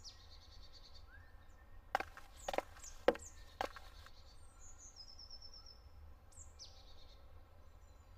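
Forest birds singing, among them a short high song that sweeps down in pitch, heard near the start and again later. About two seconds in, four sharp knocks follow one another roughly half a second apart.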